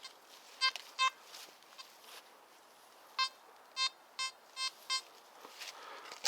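Metal detector beeping at a buried metal target: short beeps all at one pitch, two about half a second apart near the start, then five in quick succession from about three seconds in.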